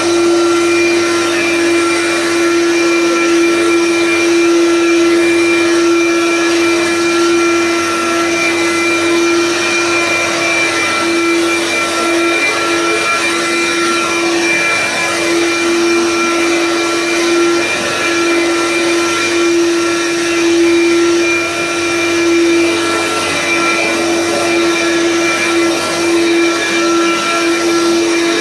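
Dirt Devil Room Mate upright vacuum cleaner running steadily while vacuuming a carpet: a continuous motor whine over airflow noise, with small dips and swells as it is pushed back and forth.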